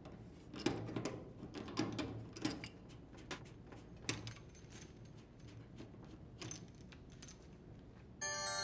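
Scattered faint clicks and small clinks as water supply hoses are unscrewed and handled at a washing machine's inlet valves. A short chime of music starts near the end.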